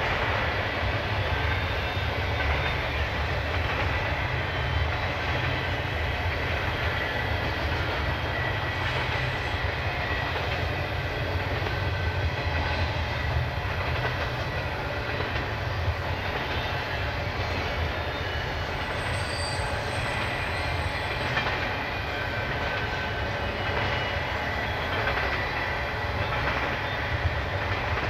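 Union Pacific intermodal freight train rolling past, its cars' wheels running on the rails in a steady low rumble. A brief high tone sounds about two-thirds of the way through.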